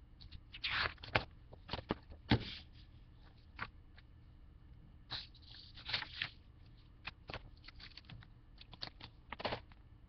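Picture book being handled and its pages turned: irregular paper rustles with scattered light taps and clicks.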